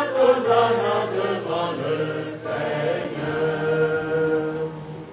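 A group of voices chanting together in unison, with held, wavering pitches.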